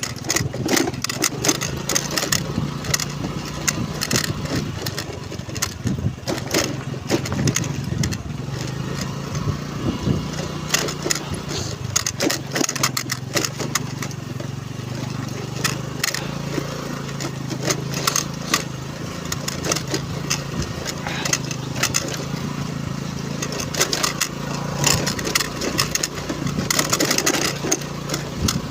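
Honda Navi scooter's small single-cylinder engine running steadily while riding, with frequent short knocks and rattles from the rough road.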